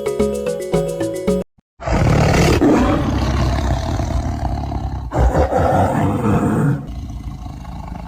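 Background music cuts off, and after a short pause a recorded wild animal's roar plays loud and rough for about five seconds, then tails off, with another roar starting near the end.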